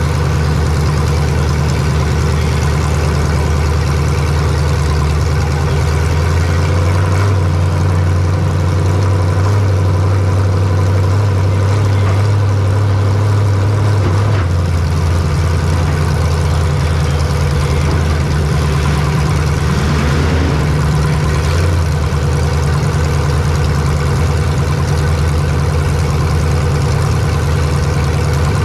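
A race vehicle's engine running steadily at low revs, heard from onboard. The engine note rises slightly from about a quarter of the way in to about halfway, then settles back.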